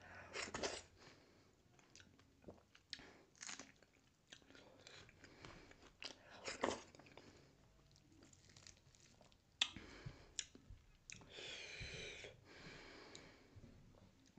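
Close-miked wet chewing and lip smacking of someone eating dhido, a stiff porridge, with sisnu nettle soup by hand, in irregular smacks and clicks.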